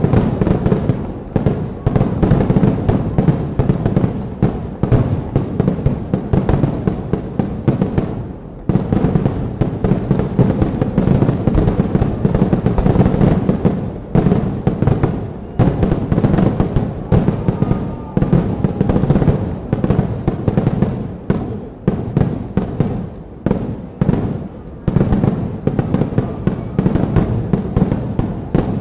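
Kerala temple fireworks (vedikattu): a dense barrage of firecracker and firework explosions going off in rapid succession, the bangs running together, with a few brief lulls, the first about eight and a half seconds in.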